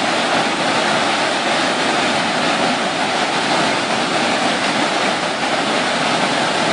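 Steady rushing of churning whitewater as a river pours through a standing surf wave.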